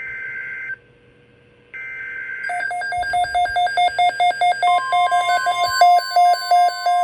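NOAA Weather Radio alert: two short, screechy SAME header data bursts about a second apart. From about two and a half seconds in, rapid electronic alarm beeping follows, and a steady 1050 Hz warning tone joins about halfway through, signalling an incoming weather alert.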